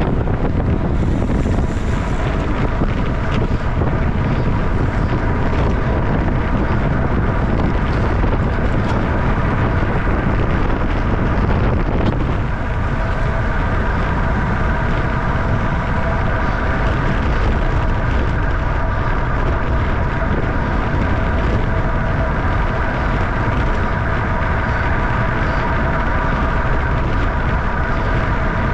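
Wind rushing over the microphone of a camera on a racing bicycle ridden at about 28 mph, with a steady high whine of several tones joining about twelve seconds in.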